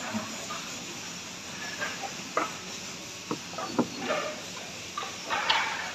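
Cloth-backed sandpaper rubbed by hand on a wooden chopping board: short scratchy strokes, with a few light knocks and clicks of hands on the board.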